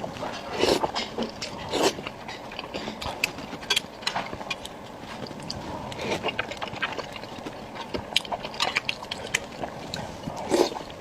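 A person eating soft pig brain dipped in chili oil, close up: wet chewing and mouth clicks, with a few louder smacks about a second in, about two seconds in, and near the end.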